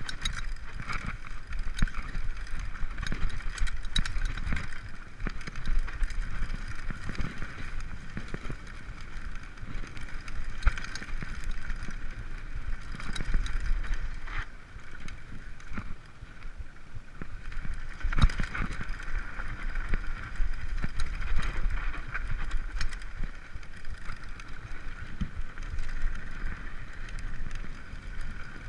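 Mountain bike ridden along a bumpy dirt singletrack: a continuous low rumble from the tyres and mount, with frequent short rattles and knocks from the frame and drivetrain over bumps, and a steady higher hiss.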